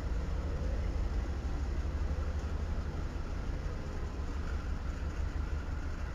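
Diesel locomotives running as they roll slowly past, a steady low rumble with no horn or bell.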